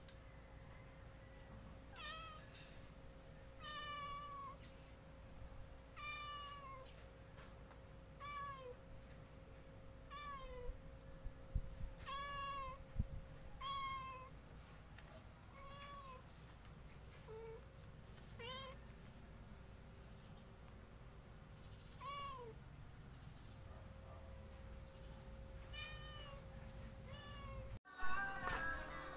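Domestic cat meowing over and over: about a dozen short meows, each rising then falling in pitch, roughly every two seconds. Two sharp knocks come midway.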